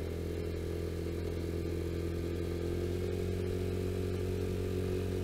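Vespa GTS scooter's single-cylinder four-stroke engine running steadily at cruising speed on the open road, holding an even note.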